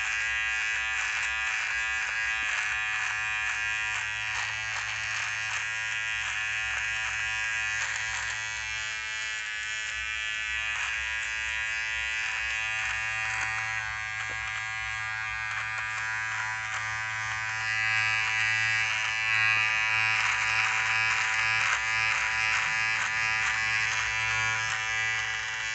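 Cordless rechargeable beard trimmer buzzing steadily as it cuts beard stubble on the chin and jaw, its sound shifting as the blade moves over the hair. It runs fast, and gets a little louder about two-thirds of the way through.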